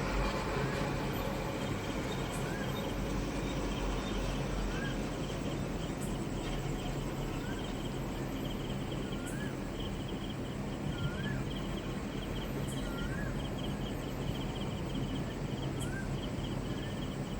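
Asian koel calling: a short rising-then-falling note repeated seven times, about every two seconds. Behind it are a steady outdoor background hum and a fast, even insect trill that starts about six seconds in.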